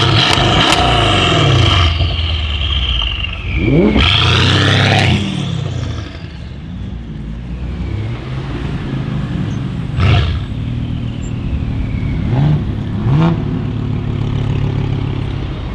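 Mercedes CLS63 S AMG twin-turbo V8 with a decat exhaust being revved hard twice, then falling back to idle, with a high whistle sliding down as the revs drop. About ten seconds in it gives a sharp short blip, then two smaller blips near the end.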